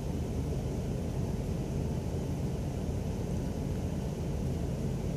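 Steady low rumble with a faint hiss over it: room background noise, with no distinct handling sounds or other events standing out.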